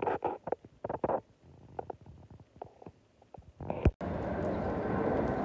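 A dog lying down, making a series of short, irregular grumbling noises. About four seconds in it cuts off suddenly to a steady street background noise.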